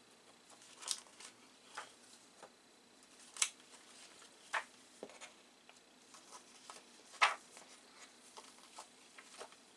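Faint handling sounds of paper and packaging: scattered light clicks and rustles, with two sharper ticks standing out, one about a third of the way in and one about three-quarters in.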